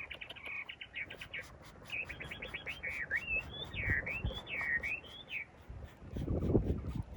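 A songbird singing: a rapid run of chirps, then whistled notes sweeping up and down, ending about five and a half seconds in. A louder low rumble of sound follows near the end.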